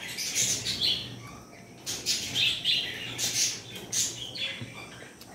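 Birds chirping: a string of short, high calls every second or so.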